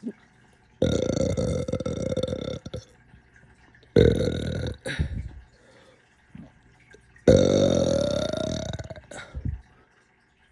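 A person burping three times: long, drawn-out burps of about two seconds, one second and two seconds, each held on a steady low pitch with a rough, rattling tone.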